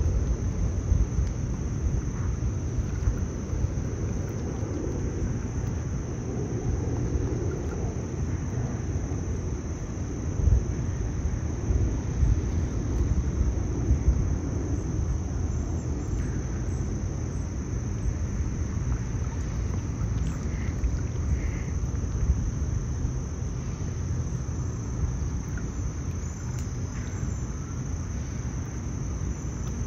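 Outdoor ambience: a low, uneven rumble throughout, with a steady high-pitched insect drone above it.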